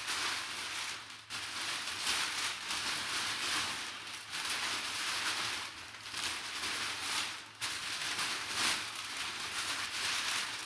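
Packing material rustling and crinkling as a sealed box is unpacked by hand, in uneven surges with a few brief lulls.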